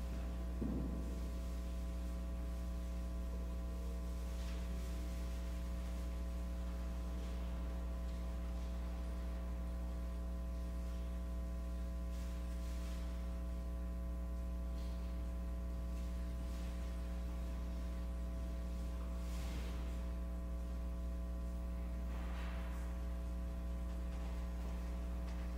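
Steady electrical mains hum, unchanging throughout, with a few faint rustles or knocks scattered through it.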